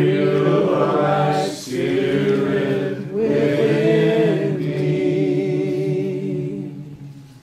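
A small group of men singing a slow worship chorus a cappella, without instruments, in three long phrases of held notes. The singing trails off near the end.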